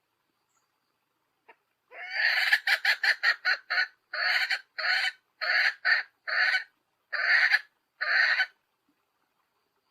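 Hen cackling, the female chicken's call: a quick run of about half a dozen short clucks starting about two seconds in, then six or seven longer calls at an even pace.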